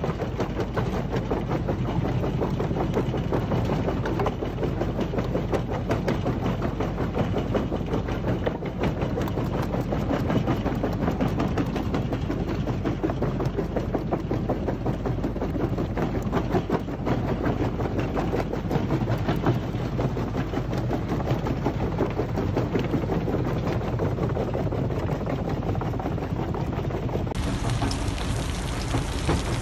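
Screencore XL Dual-Power jaw crusher running under load: a steady machine hum overlaid with dense cracking and rattling as stone demolition rubble is crushed in the jaw.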